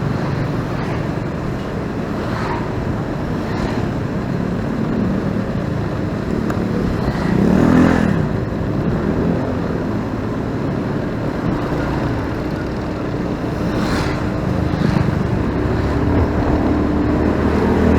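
Motorcycle engine running steadily while riding in city traffic, with road and traffic noise around it. A louder swell about eight seconds in.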